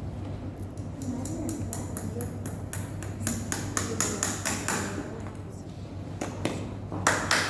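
Farrier's hammer driving horseshoe nails into a horse's hoof: a quick run of light, ringing metal taps, about three or four a second. A pause follows, then a few louder strikes near the end.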